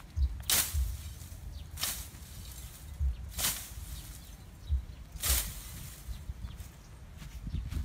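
Machete hacking into a bamboo thicket: four sharp swishing chops of blade through stems and leaves, about one and a half to two seconds apart, with soft low thuds between them.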